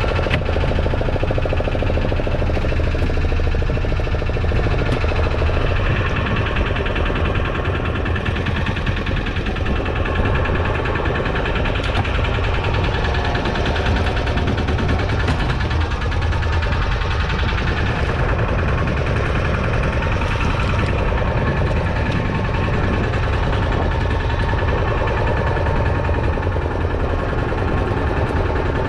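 Fishing boat's engine running steadily with a low, even throb.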